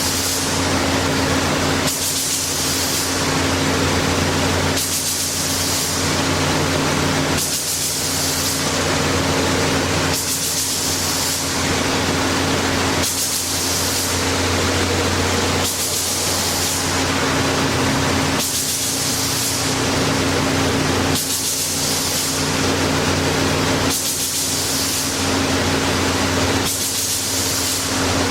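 Cemco 2000 43-inch wide belt sander running under power: a steady motor hum under a hiss that swells and falls in a regular cycle about every three seconds.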